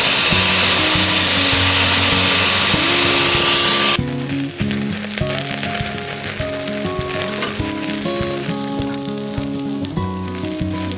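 Food sizzling on a grill, loud for about four seconds and then quieter, over background music.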